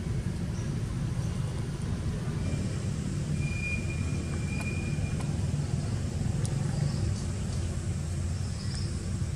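Steady low outdoor rumble, with a faint thin high tone for a second or two in the middle.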